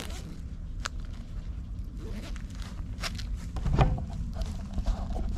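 Fabric rustling and zipper rasp of a beekeeping jacket and veil being zipped up, followed by footsteps over dry leaves and grass. A few sharp clicks stand out, the loudest nearly four seconds in.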